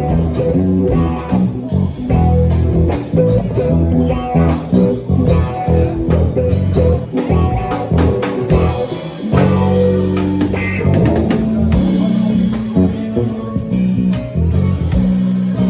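Live band playing an instrumental blues passage: guitar, bass guitar and drum kit.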